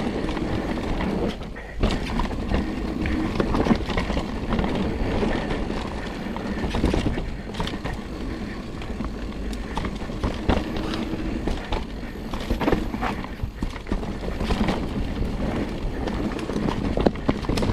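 Mountain bike riding fast down a dirt trail: a steady rush of tyre and wind noise, broken by frequent rattling knocks from the bike going over bumps.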